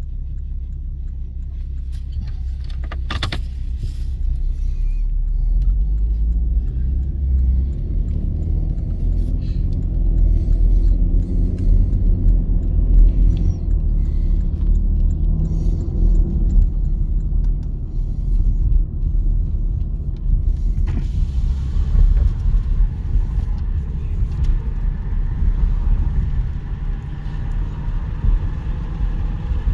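ChME3T shunting diesel locomotive's engine running with a deep, steady rumble, with one sharp click a few seconds in. About two-thirds of the way through, a broad hissing clatter joins the rumble.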